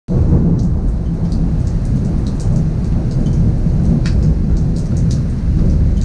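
Heavy rain pouring down on a balcony and its roof: a dense, steady rush with a strong low rumble, dotted with many sharp splats of drops.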